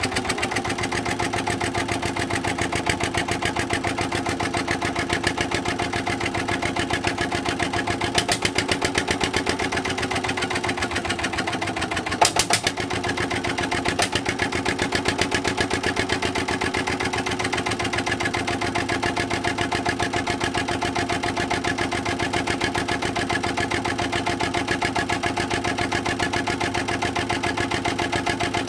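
Petter AVA1 single-cylinder air-cooled diesel stationary engine running steadily with an even beat. A brief burst of sharp clicks comes about twelve seconds in.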